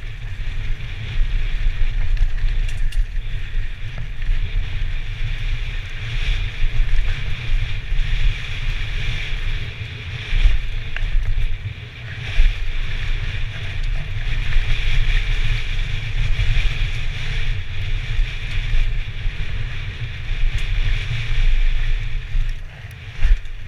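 Wind buffeting the microphone of a helmet-mounted camera on a downhill mountain bike run at speed, over a steady rumble of the bike rolling and rattling on the dirt trail, with occasional knocks from bumps.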